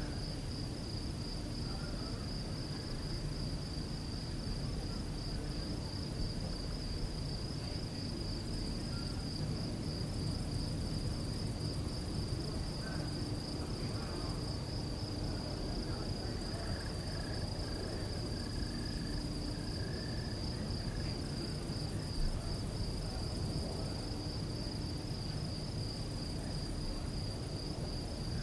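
Crickets chirping in one steady, unbroken high trill, with a fainter, higher-pitched insect trill coming and going, over a low steady background rumble.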